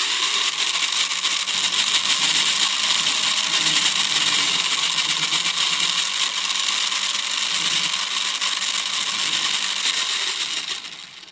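Remote control car's small motor whirring steadily at high speed, fading out near the end.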